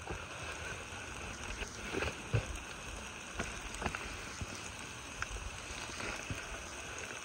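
Food cooking in a pan over a Solo Stove wood-burning camp stove: a steady hiss with scattered sharp crackles and pops.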